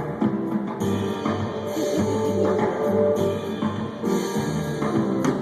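Live rock band playing through an amphitheatre PA: electric guitar and bass chords over a drum kit.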